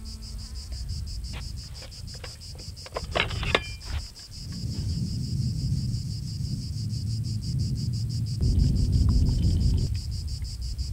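A steady, evenly pulsing high chirring like insects, over a low rumbling noise that swells louder near the end, with a few sharp clicks about three seconds in.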